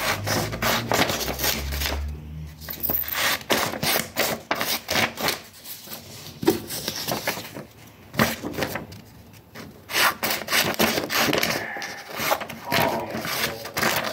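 Sheets of paper rustling and rubbing, handled close to the microphone, in irregular scraping strokes.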